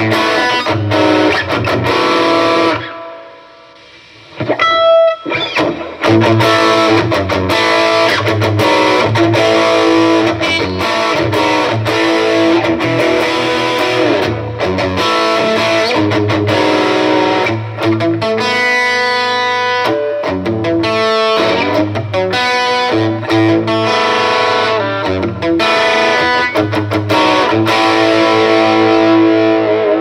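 G&L Legacy electric guitar with three single-coil pickups, played through an amplifier with a mix of chords and single-note lines. The playing stops briefly about three seconds in, comes back with a few ringing high notes, then runs on.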